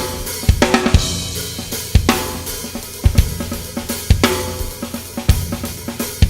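Drum kit played as a groove: kick drum hits about once a second under fast snare strokes, with hi-hat and cymbals ringing and crashes about half a second in and again about four seconds in.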